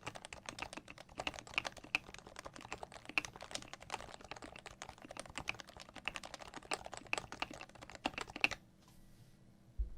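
Fast typing on a Cooler Master CM Storm Novatouch keyboard with lubricated Topre electrocapacitive switches, fitted in a Norbauer Norbatouch case. The keystrokes stop about eight and a half seconds in.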